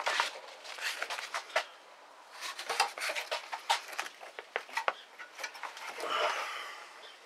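Cardboard template being handled and laid into a cut-out in a van's rusty steel floor: a run of small clicks, taps and rustles, with a longer scrape near the end as it slides into place.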